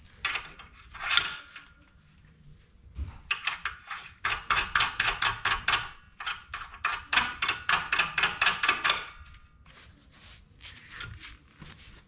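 Hand ratchet clicking in quick runs of sharp metallic clicks while bolts are tightened, with a single metal knock about a second in.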